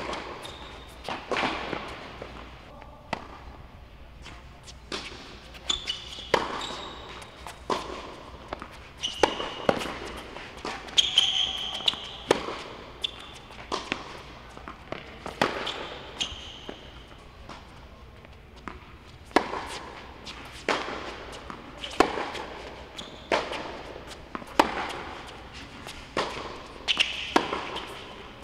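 Tennis ball being struck by racquets and bouncing on an indoor hard court in rallies, a regular series of sharp pops that ring briefly in the hall. Short high sneaker squeaks come between some of the hits.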